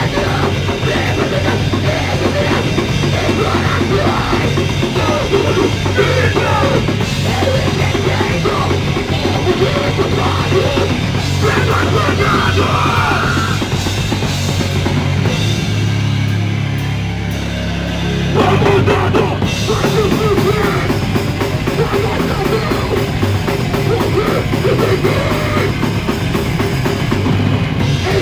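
A loud live punk/metal band on electric guitar, bass and drum kit, recorded on a phone. About two-thirds of the way through the drums drop out for a couple of seconds under a held low note, then the full band crashes back in.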